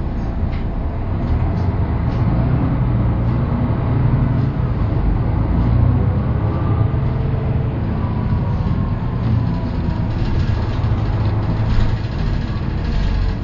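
Inside a MAN 18.310 HOCL-NL city bus on the move: its MAN D 2866 diesel engine runs with a low, steady drone through the ZF 6HP592 six-speed automatic gearbox, and a faint drivetrain whine rises and falls in pitch through the middle.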